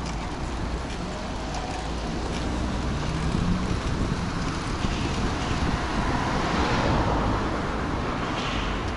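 Wind on the microphone and road and traffic noise while riding a bicycle in wet weather, swelling louder about six to seven seconds in.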